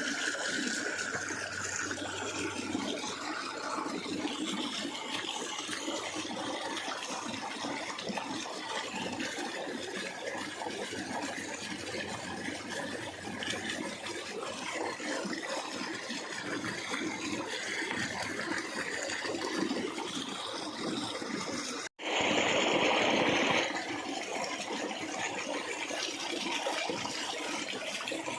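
Steady rushing of running water, like a forest stream. About three-quarters of the way in, the sound cuts out and a brief, louder burst of noise follows.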